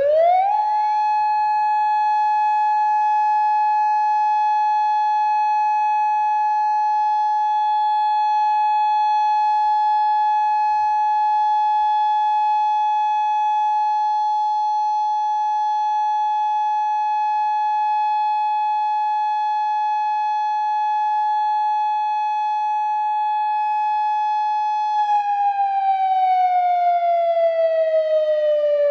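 Federal Signal Modulator II 4016B electronic warning siren sounding its 25-second alert signal. It sweeps up to pitch within half a second and holds one loud steady tone, then begins to fall in pitch about 25 seconds in as the signal winds down.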